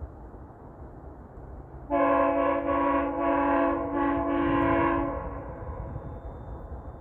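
GO Transit train's air horn sounding a chord of several tones for about three seconds, starting about two seconds in, with the upper notes pulsing in a quick series of blasts before it fades. A low train rumble runs under it.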